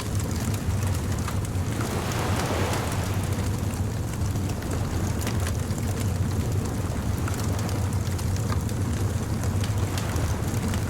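Bonfire crackling, with frequent sharp pops, over the steady low rumble and hiss of ocean surf; a wave swells and washes in about two seconds in.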